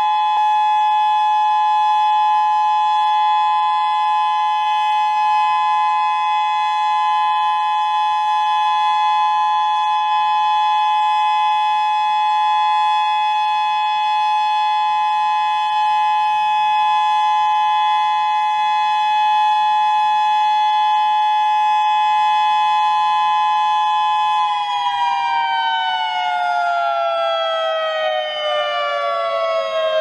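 Civil defense siren holding a steady two-pitch wail, then winding down with falling pitch over the last five seconds or so.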